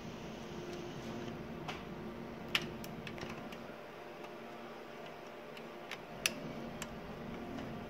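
Small sharp plastic clicks and taps as an Ethernet (RJ45) plug is fumbled and pushed into a PC's network port, the loudest click a little over six seconds in, over a steady low hum.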